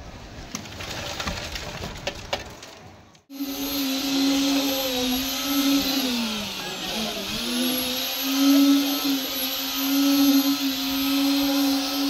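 Electric needle (poker) concrete vibrator running with a steady high whine from about three seconds in, compacting fresh concrete in a column formwork. Its pitch sags briefly a few seconds after it starts, then steadies. Before it starts, scattered knocks and scraping.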